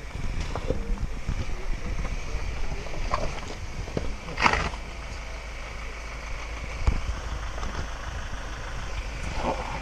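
Ford Ranger Raptor pickup crawling over a rocky stream bed, its engine running at low revs under a steady rumble, with occasional knocks of tyres on rocks and a brief louder burst of noise about four and a half seconds in.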